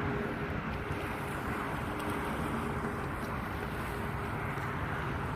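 Steady outdoor wind noise on the microphone, with a faint steady hum underneath that comes and goes.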